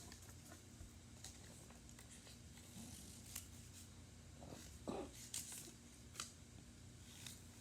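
Faint handling of paper: a few light, scattered rustles and clicks from paper cutouts and craft materials being worked by hand, with long near-quiet gaps between them.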